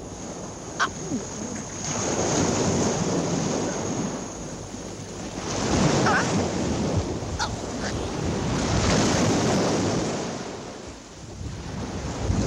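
Sea surf surging and breaking in about three long swells of rushing noise, with a few faint sharp clicks.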